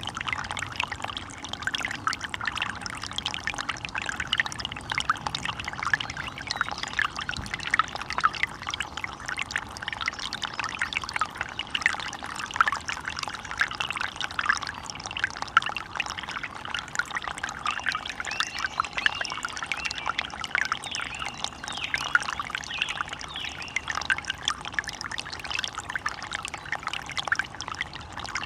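Running water trickling and splashing steadily, a dense bubbling babble of many small splashes.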